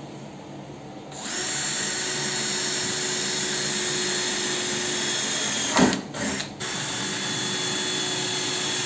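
Cordless drill running steadily as it bores a hole into the side of a table saw's housing, starting about a second in. Past the middle there is a sharp knock and the drill cuts out briefly twice before running on.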